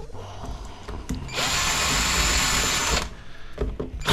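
Power drill running in one burst of about a second and a half, backing a screw out of a PTAC fan motor's housing, with a few small metal clicks before and after it.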